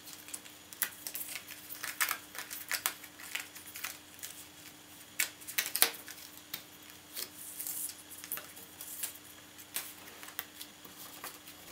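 Pre-cut card pieces being pressed out of a die-cut cardboard sheet and handled: irregular crisp snaps, clicks and paper rustling.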